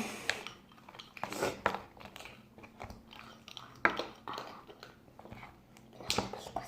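Slime being squeezed and worked by hand: irregular sticky clicks and crackles, with a sharper pop a little before the middle.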